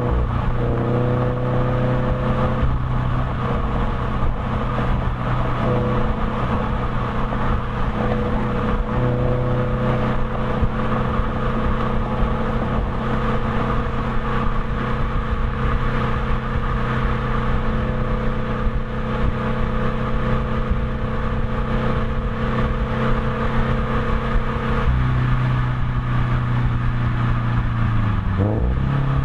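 Subaru BRZ's 2.0-litre flat-four running through unequal-length headers and a Perrin 2.5-inch resonated exhaust while cruising at steady speed, heard at the rear bumper over road noise. The engine note holds a steady pitch, changing about 25 seconds in and dipping briefly near the end.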